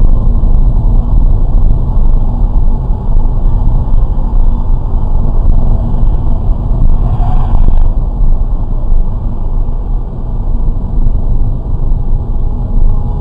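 Steady, loud rumble of a car driving: engine and road noise, heaviest in the low end, with no distinct impact.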